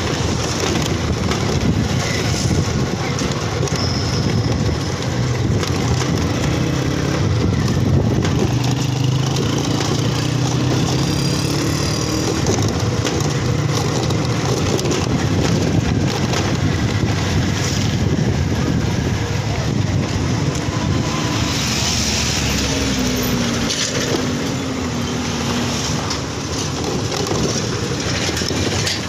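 Motorcycle engine running while riding, its note rising and falling a little with the throttle, under steady wind and road rumble.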